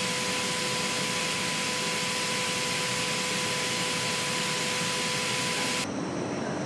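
Robotic paint booth spraying a car body: a steady loud hiss of the spray atomizers and booth air, with a steady tone over it. Near the end it cuts off abruptly to a quieter factory hum.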